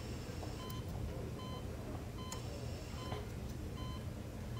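Bedside patient monitor beeping at an even pace, a short high beep about every 0.8 seconds, five in all, over a steady low hum.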